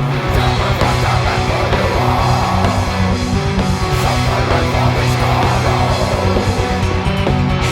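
Heavy metal band recording: distorted electric guitars and bass guitar playing sustained low chords over fast, evenly spaced kick-drum beats.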